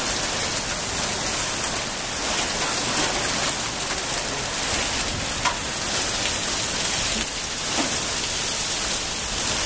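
Heavy storm rain pouring down in a steady, dense hiss, beating on grass, a car and a tiled terrace, with scattered sharp ticks of individual impacts.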